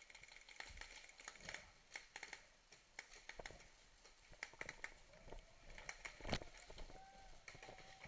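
Scattered sharp clicks and knocks, some in quick clusters, the loudest about six seconds in.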